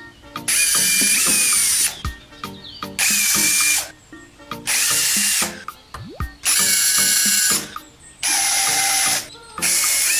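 Small electric drill running in six short bursts of about a second each, its whine steady within each burst, over background music.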